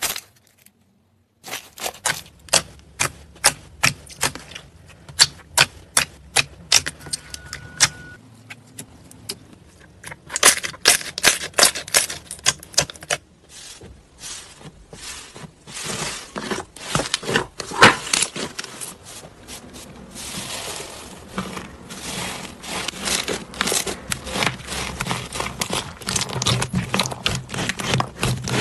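Slime being pressed, poked and kneaded by hand, making a fast run of sharp clicks and pops that starts about a second and a half in and grows denser, turning into wetter squishing near the end.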